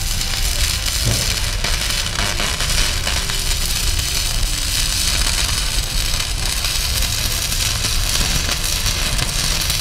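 Stick (MMA) welding arc burning a 6013 electrode, a steady crackling hiss. The electrode is moved too fast and held at the wrong distance from the joint, a faulty technique that leaves a weld full of contaminants.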